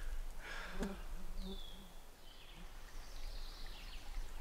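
Quiet woodland ambience, with a single short, falling bird chirp about a second and a half in.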